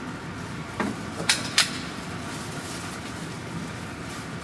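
Three sharp metallic clacks within about a second from a handgun being worked by hand to clear a jam, as the slide is racked and the pistol handled.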